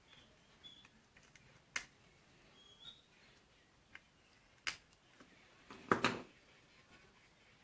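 A few sharp, separate clicks and knocks from the plastic parts of an electric drill being handled and fitted back together, the loudest a short cluster about six seconds in.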